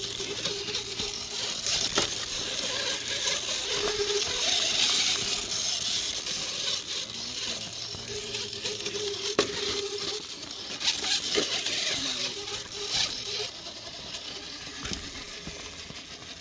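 Radio-controlled rock crawler working up granite rock: its small electric motor and drivetrain whining on and off as the throttle changes, with tyres scrabbling and occasional sharp clicks and knocks of the truck against the rock.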